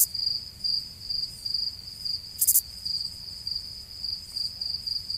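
Cricket-chirping sound effect, the comic 'crickets' cue for an awkward silence: a steady, evenly pulsed high chirp. A brief high-pitched sound comes at the start and another about halfway through.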